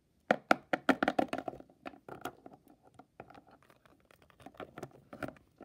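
Quick, irregular clicks and taps of hard plastic toy animal figures being hopped and moved across a hard floor, loud and dense in the first couple of seconds, then fainter, with a few louder taps near the end.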